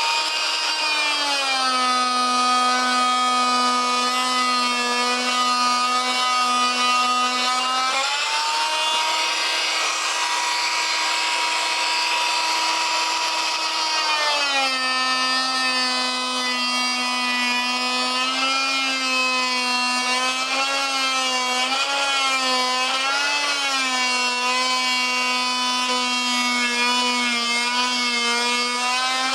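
Harbor Freight oscillating multi-tool with a cut-down hardwood blade running and cutting grooves into a rubber turf tire. It gives a steady buzzing whine whose pitch rises for several seconds, about eight seconds in, as the blade eases off the cut, then drops back and wavers as it bears into the rubber again.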